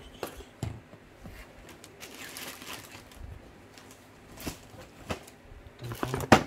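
A small cardboard box wrapped in packing tape being handled and turned over: rustling of cardboard and tape with scattered knocks and clicks, a longer rustle a couple of seconds in, and a cluster of louder knocks near the end.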